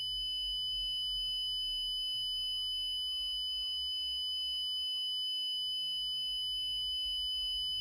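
Synthesized EAS-style 'brown noise' drone: steady high-pitched electronic tones held over a low rumble, with fainter tones underneath shifting in pitch every second or two.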